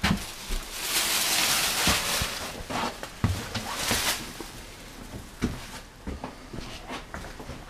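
Footsteps and knocks while walking through a doorway in an empty mobile home, with a loud rushing scrape about a second in and a shorter one about four seconds in.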